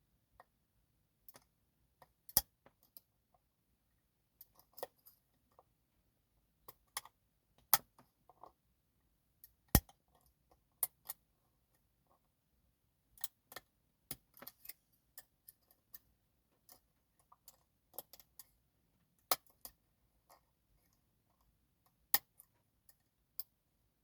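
Lock picking an Avocet ABS dimple lock: small, irregular metallic clicks and ticks as a pick works the pin-in-pin pins in the keyway under tension, with a few sharper clicks standing out.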